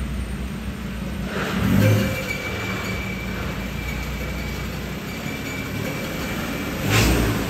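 Ford Ranger's 3.2-litre five-cylinder turbo-diesel running at low revs as the ute is driven up onto dyno rollers, with two brief louder swells, about two seconds in and near the end. A faint steady high whine sits under it through the middle.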